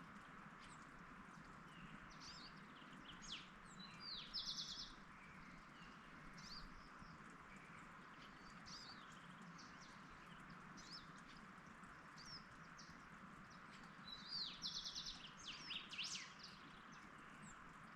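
Songbird singing two similar phrases about ten seconds apart, each a few quick high sweeping notes and a fast trill. Scattered faint chirps from other birds sound over a steady soft background hiss.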